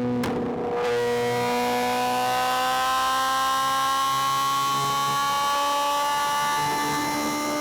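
Suzuki GSX-R 750's inline-four engine pulling under throttle, its note climbing slowly and steadily as the bike gathers speed, with wind rush building from about a second in.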